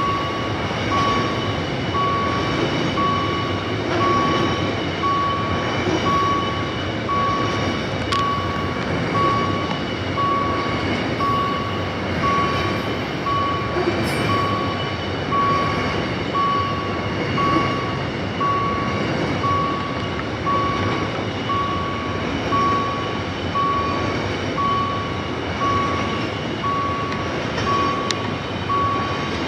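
Level-crossing warning beeper sounding a steady single-pitch beep about once a second, over the continuous rumble of a freight train of double-stacked container wellcars rolling past.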